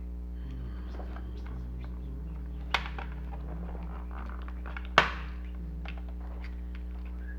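Two sharp knocks about two seconds apart, the second the louder, over a steady low electrical hum.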